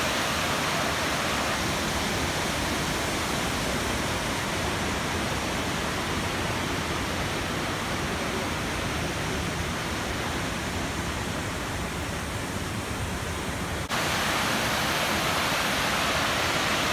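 Elephant Falls' water rushing down in a steady, unbroken noise of falling water. About fourteen seconds in it breaks off for an instant and comes back slightly louder and brighter.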